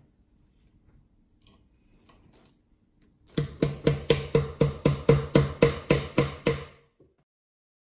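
A small hammer tapping a nail into a wooden beehive box: about fourteen quick, even strikes at roughly four a second, each ringing briefly through the box. Faint handling sounds come before the hammering starts, about three seconds in.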